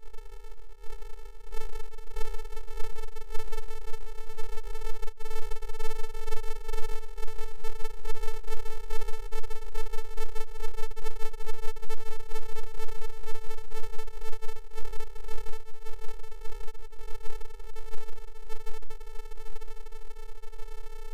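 A steady electronic drone held at one unchanging pitch, with a low hum beneath it.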